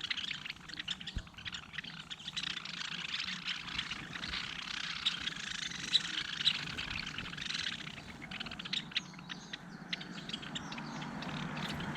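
Small birds chirping at a feeder, many short high calls overlapping, with a low rumble building near the end.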